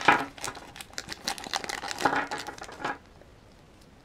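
Small clear plastic bag crinkling and crackling as fingers handle it and pull toy figure pieces out of it, stopping about three seconds in.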